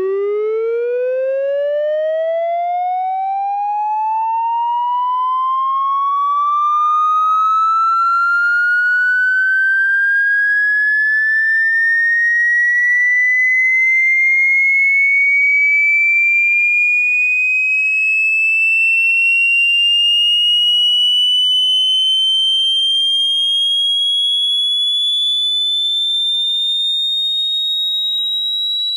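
A single electronic tone with buzzy overtones, gliding slowly and steadily upward in pitch without a break, from a low hum to a high whistle.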